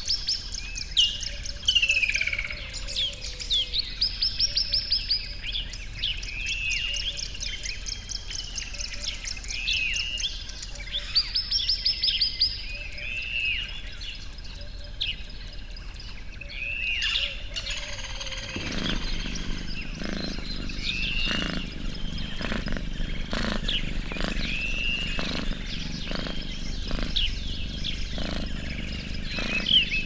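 Small birds chirping and trilling. From a little past halfway there is also a rhythmic ripping about once a second, the sound of a cow tearing off grass as it grazes.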